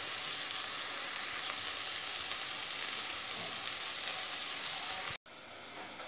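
Sliced onions sizzling steadily in a little oil in a non-stick kadai, fried to a medium brown and just done. The sizzle cuts off suddenly about five seconds in.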